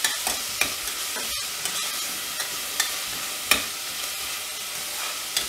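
Chopped onions and spices sizzling in hot oil in a steel pressure cooker while a steel ladle stirs them, with scattered clicks and scrapes of the ladle against the pot.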